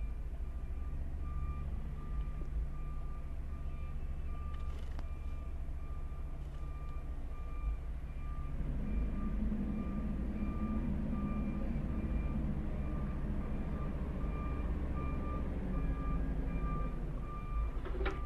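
Semi truck's reversing alarm beeping in a steady, even rhythm as the rig backs up. Under it runs the low rumble of the truck's diesel engine, which grows louder about halfway through as the tractor draws near.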